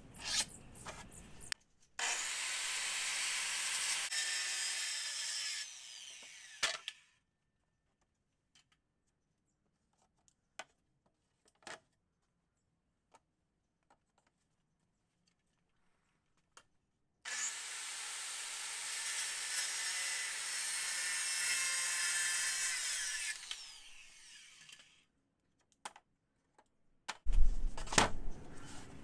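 A power saw cutting plywood in two runs, one of about four seconds and one of about seven, with near silence between them. Near the end, several sharp knocks, the loudest sounds, as cut plywood panels are laid down on a wooden table.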